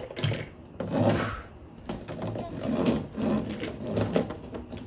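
Hot Wheels toy monster trucks pushed and rolled along a wooden tabletop: the rumble of their wheels on wood comes in several short pushes, with light knocks as the trucks bump and are set down.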